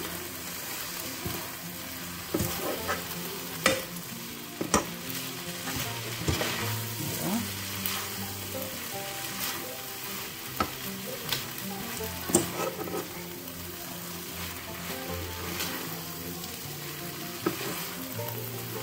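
Chicken chow mein noodles sizzling in a non-stick wok while they are tossed and stirred with a spatula, with scattered sharp clicks and scrapes of the utensils against the pan.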